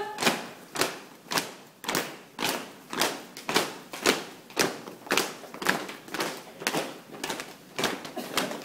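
A flag-raising troop marching in step, their shoes striking the paving together in an even rhythm of about two footfalls a second.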